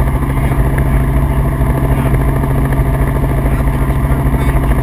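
Helicopter in flight: a loud, steady engine and rotor drone with a fast, even pulsing.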